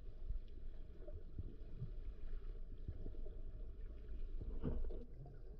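Muffled low rumble of moving water picked up underwater through a camera housing, with faint scattered clicks and knocks.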